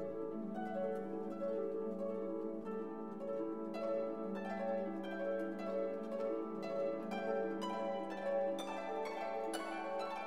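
Instrumental background music: plucked string notes over a held low note, the notes coming faster near the end.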